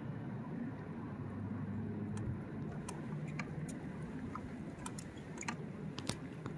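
Low steady rumble of a Bixby electric motor driving a Hobie Pro Angler kayak, easing off about two seconds in. After that come a scattering of light, sharp clicks and taps.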